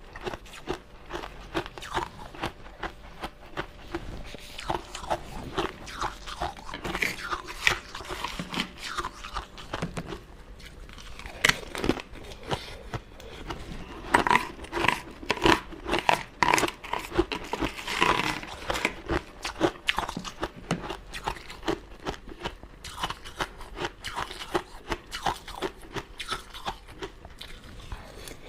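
Close-miked eating of crunchy sugar-coated sweets: irregular crunching bites and chewing, with a thick run of crackly crunches about halfway through.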